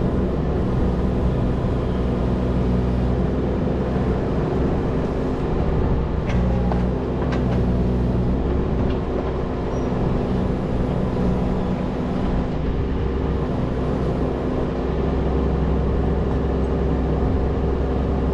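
A machine engine running steadily at a constant speed, with a few faint clicks and knocks partway through.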